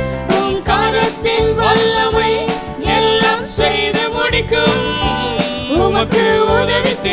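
Tamil Christian worship song, played by a band with a steady beat, with singing over it.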